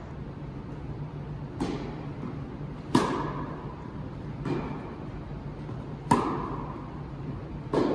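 Tennis rally: five sharp racket-on-ball hits about a second and a half apart, every other one louder, each with a short echo off the hall, over a steady low hum.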